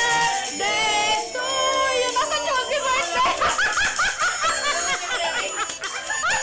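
Laughter: a run of quick, repeated ha-ha bursts starting about three seconds in, over background music.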